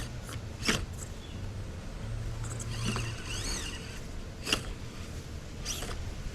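Axial SCX24 Deadbolt micro RC crawler working over obstacles while hung up. Its small electric drive hums on and off, with brief high whines that rise and fall, and four sharp clicks or knocks.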